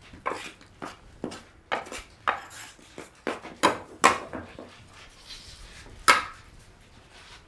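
Kitchen utensils and dishes clinking and tapping in a run of irregular light knocks, with louder knocks about four and six seconds in.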